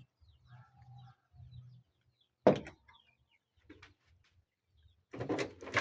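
Faint, scattered chirping of poultry chicks, with one short, sharp sound about two and a half seconds in.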